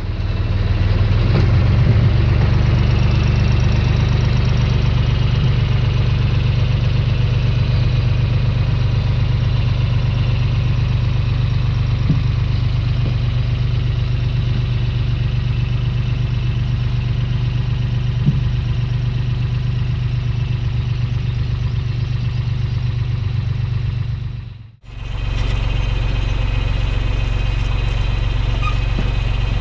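Three-cylinder John Deere tractor diesel running steadily while pulling a two-row potato planter. The sound breaks off briefly near the end and resumes unchanged.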